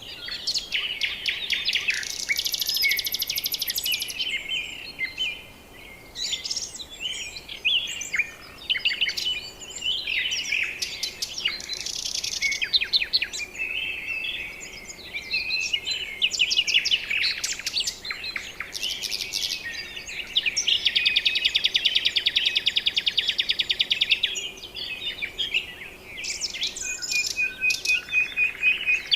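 Several birds calling over one another in a steady chorus of chirps and whistles. Long, rapid trills stand out about two seconds in and again from about twenty to twenty-four seconds.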